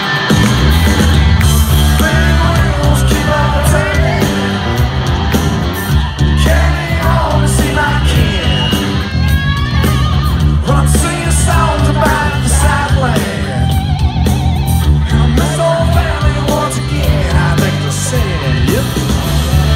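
Live band playing loud rock music, with a bending electric guitar lead over heavy bass and drums.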